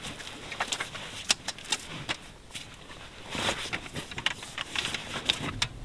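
Irregular clicks, knocks and light rattles of camper-trailer and rooftop-tent fittings being handled, several of them sharp taps a second or so apart.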